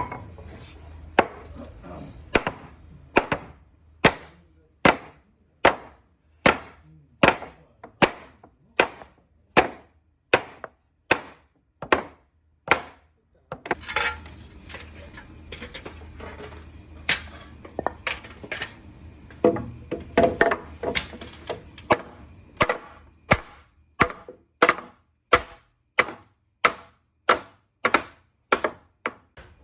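Wooden mallet striking timber again and again, about one blow a second, driving a traditional Japanese wood joint together. The blows stop for a few seconds about halfway, then resume a little faster.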